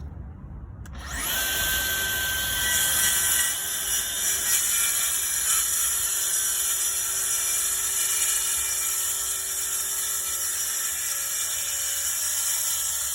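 DeWalt cordless track saw starting with a rising whine about a second in, then running steadily as its blade cuts through a sheet of plywood along the track.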